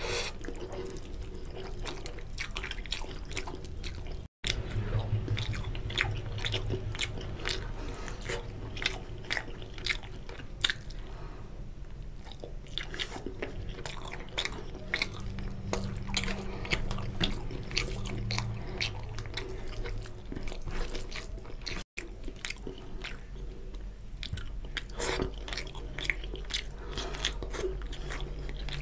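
Close-miked wet chewing and lip-smacking of a person eating basmati rice and rohu fish curry by hand, a dense run of small sharp clicks and smacks. The sound drops out briefly twice.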